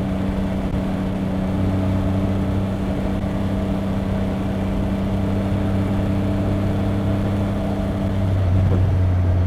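2025 Triumph Rocket 3 R Storm's 2.5-litre inline three-cylinder engine running at a steady speed under riding wind noise. About eight seconds in, the engine note drops lower and grows louder.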